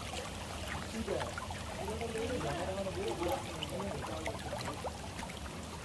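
Faint voices of people talking in the distance over a steady wash of flowing stream water.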